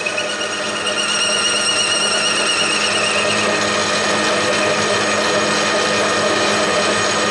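Metal lathe running, its boring tool cutting inside the bore of a steel tube held in a four-jaw chuck, making the cylinder for a small compressed-air engine. A steady machine hum with the cutting noise over it, and a wavering high-pitched ring during the first few seconds of the cut.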